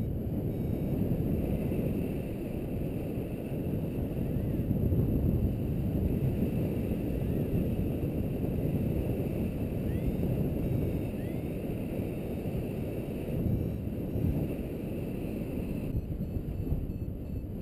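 Airflow buffeting the microphone of a camera carried in paraglider flight: a steady low rumble that keeps up throughout.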